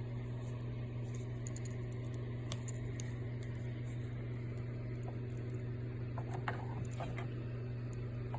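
A few small clicks and light metallic clinks, bunched about six to seven seconds in, from a metal bangle and its packaging being handled, over a steady low hum.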